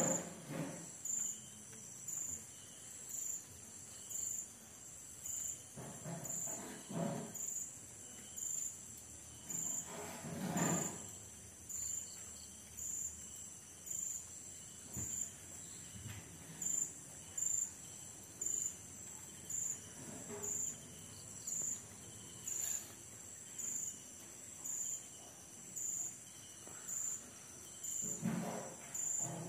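Night insects trilling steadily at a high pitch, with a sharper pulse repeating a little under once a second. A few soft low rustles come and go.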